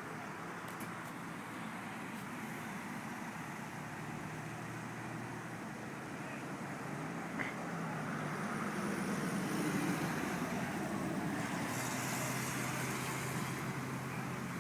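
A large vehicle engine running steadily, working harder and growing louder from about eight seconds in.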